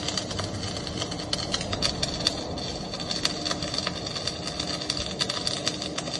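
Electric arc welding: a steady crackle and sputter of the arc, thick with irregular pops.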